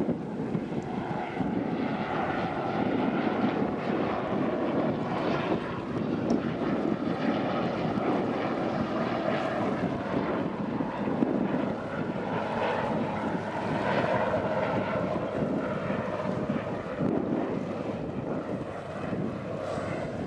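Wind on the microphone over the steady drone of a passing engine.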